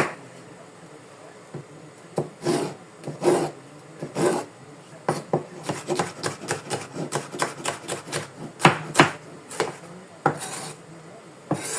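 Knife cutting vegetables on a cutting board: irregular scraping, rasping strokes of varying length.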